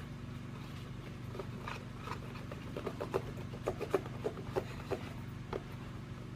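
A spoon stirring sticky slime of clear glue and liquid starch in a bowl, making irregular wet clicks and squelches several times a second, over a steady low hum.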